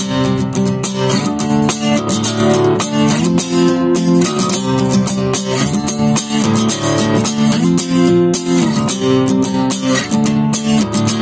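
Acoustic guitar strummed in a steady rhythm, with the chord changing every second or two.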